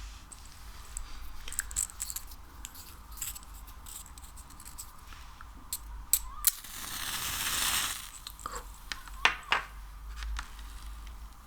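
Close-miked sticky handling sounds from slime and wax: scattered wet clicks and pops, a longer crackling, tearing swell about halfway through, then a few sharp loud pops.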